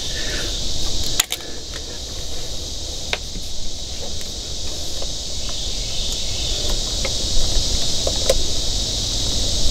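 Steady high-pitched drone of insects over a low background rumble, with a few light clicks, one near the end as a plastic wiring connector is handled.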